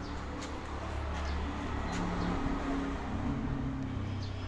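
A motor vehicle's engine running close by, its hum getting louder toward the middle and then easing off, with its pitch shifting as it goes.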